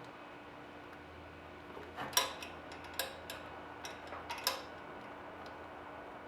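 A few sharp clicks and knocks of hand work on parts, clustered over a couple of seconds in the middle, over a faint steady hum.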